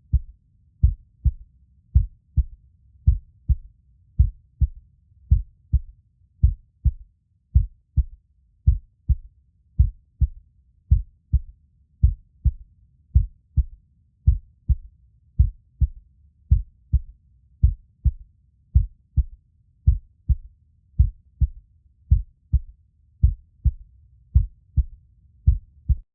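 Human heartbeat, a slow steady lub-dub: paired low thumps repeating about once a second.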